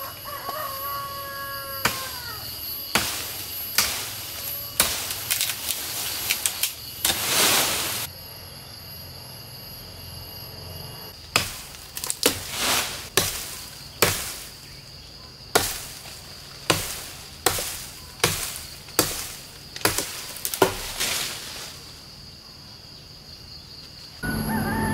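Machete chopping into a thick lychee branch: sharp wooden blows about two a second, in two runs with a pause of a few seconds between them. A steady high insect drone runs behind.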